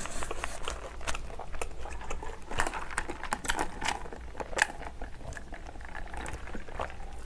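Close-miked chewing with irregular wet mouth clicks, then sipping a drink through a straw, with small wet slurping sounds about halfway through.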